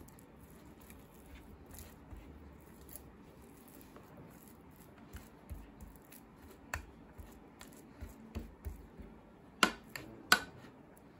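Steel spoon spreading mashed boiled chicken over toasted bread: faint scraping with scattered light clicks, and two sharper clicks near the end.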